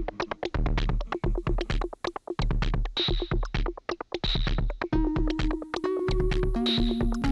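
Electronic background music: a steady drum-machine beat over held synthesizer tones and a low bass.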